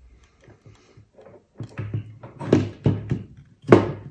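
Clicks and knocks from small plastic parts of a metal detector's control housing being handled and pulled apart, in an irregular run with two sharper knocks, the loudest near the end.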